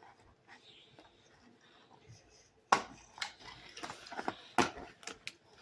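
Quiet for almost three seconds. Then a sudden sharp knock, followed by an irregular run of clicks and knocks, like small hard objects being handled and set down.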